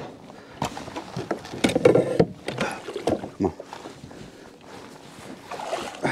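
Handling noise on a kayak while a hooked redfish is fought up to the side: irregular knocks and short rustling bursts, busiest in the first half and again near the end.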